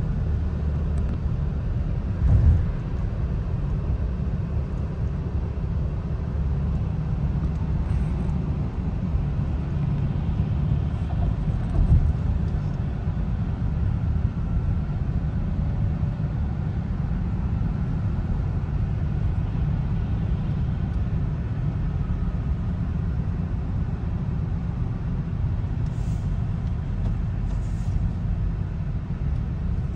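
Road and running noise heard inside the cabin of a moving car: a steady low rumble, with two brief thumps, one about two and a half seconds in and one about twelve seconds in.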